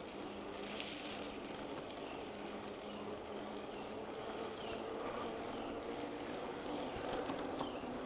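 Bicycle rolling along a woodland trail, a steady noise of tyres and wind. A few short falling bird chirps come through the noise, and a thin high whine runs beneath it all.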